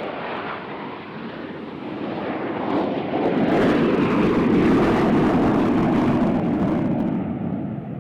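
Aircraft flying past, its engine noise swelling to a peak in the middle and then fading away.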